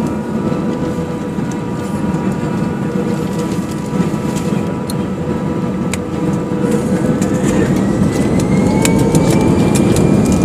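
An airliner's jet engines heard from inside the passenger cabin, with a steady rumble as the plane rolls along the runway. About two-thirds of the way in, a whine starts rising in pitch and the sound grows louder as the engines spool up for takeoff.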